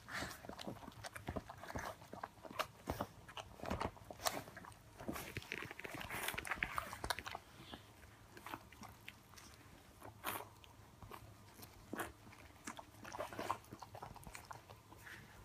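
Mother Siberian husky licking and mouthing her newborn puppy: irregular wet licks, smacks and mouth clicks, busiest around five to seven seconds in and again near the end.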